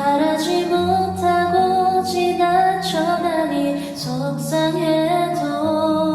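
A woman singing a Korean ballad in a soft voice over an instrumental backing track, holding and gliding between notes.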